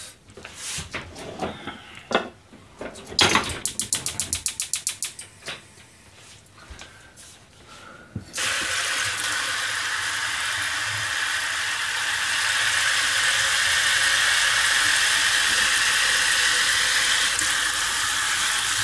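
Kitchen tap turned on about eight seconds in, water running steadily into a steel sink. Before it, handling clicks and knocks, with a quick rattling run of about nine sharp taps around three to five seconds in.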